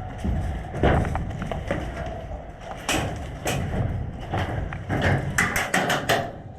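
Thumps and knocks of a player moving in gear, then near the end a quick run of about eight sharp cracks from airsoft guns firing.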